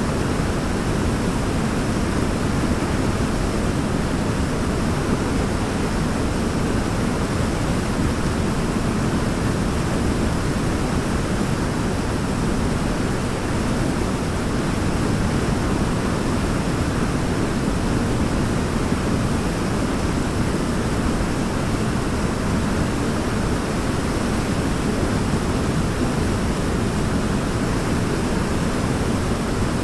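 Waterfall: a steady, unbroken rush of falling water, deepest in the low end.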